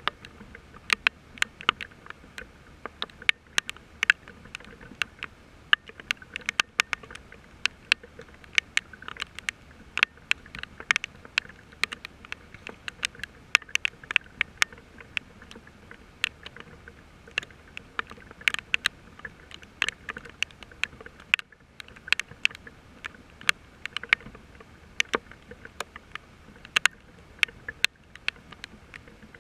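Rain falling, with large drops tapping sharply and irregularly, several times a second, over a faint hiss of rain.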